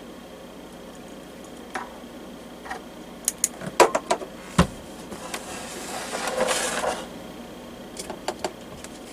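Scattered clicks and knocks of a diesel heater's plastic case and parts being handled and worked at during disassembly, with the sharpest knock a little past halfway and a brief scraping rustle just after it.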